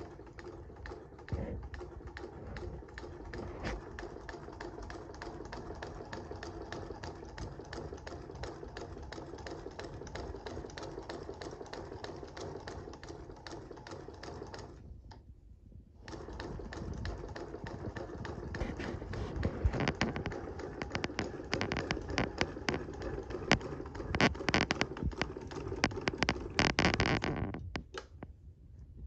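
Antique Grover & Baker No. 9 sewing machine stitching through fabric: a fast run of light mechanical clicking that stops briefly about halfway, then starts again louder until just before the end.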